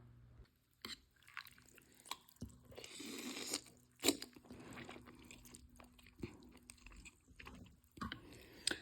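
A person eating ramen noodles: close-up chewing and mouth sounds, with small sharp clicks scattered through and a longer noisy stretch about three seconds in.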